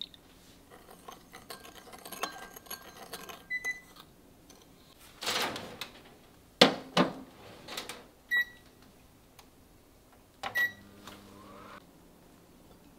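Kitchenware being handled: a run of light taps and clicks, a short rustle, then a few sharp knocks and clinks that ring briefly, the loudest about seven seconds in.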